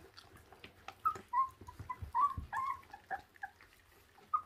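Two 26-day-old puppies whimpering in a run of short, high squeaks while gnawing and tugging at raw meat, with small clicks of chewing.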